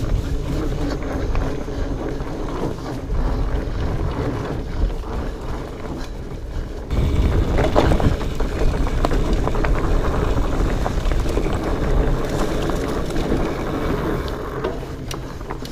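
Specialized Fatboy fat bike being ridden over a rocky, rooty trail: a steady rumble of the tyres with many short rattles and knocks from the bike, and wind on the microphone. It gets louder about seven seconds in.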